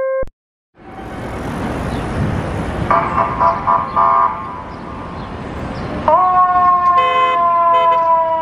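Street traffic with a heavy diesel engine running, and a pulsing run of horn blasts about three seconds in. About six seconds in, the fire engine's siren starts with a quick rise and then slowly falls in pitch, with two short air-horn blasts over it.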